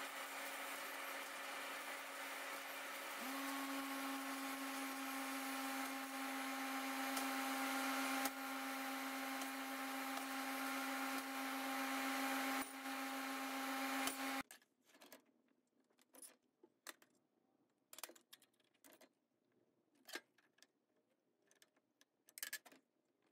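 Fiber laser cutting machine cutting 2 mm stainless steel sheet: a steady hiss with a steady hum that steps up slightly about 3 seconds in. It cuts off suddenly about 14 seconds in, leaving near silence broken by a few faint clicks.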